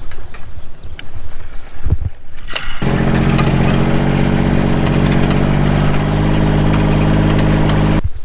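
Irregular low knocks and rattles, then, about three seconds in, a farm vehicle's engine running at a steady speed, which stops abruptly near the end.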